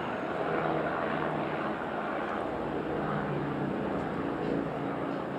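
A steady engine drone whose pitch wanders slowly.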